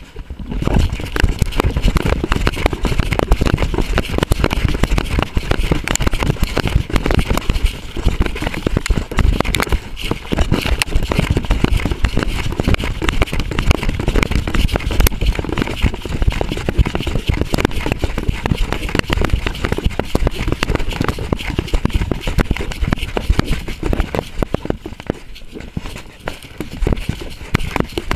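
Dog-mounted camera on a running Walker coonhound: a continuous rough clatter of paw strikes, brush crackling and the camera jostling against the dog. It eases briefly near the end.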